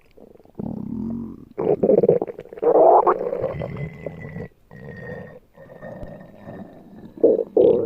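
Stomach growling and gurgling in a string of irregular rumbles, the loudest about two and three seconds in and again just before the end.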